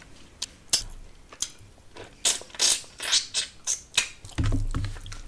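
Close-miked chewing of fish head, with irregular wet mouth smacks and crunches, a few each second. A low rumble comes in about four and a half seconds in.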